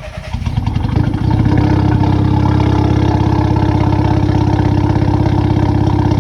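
VW Scirocco engine idling with a steady pulsing beat, growing louder over the first second or so. It has a slight misfire at idle.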